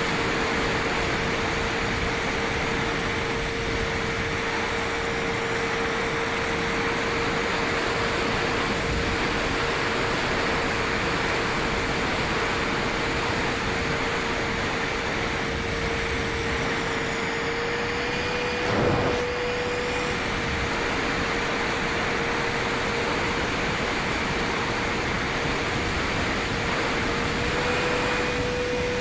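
Dynam Meteor RC jet's twin electric ducted fans running in flight: a steady whooshing rush with a constant whine. The pitch rises slightly a couple of times with the throttle, and there is a brief louder swell about two-thirds of the way in.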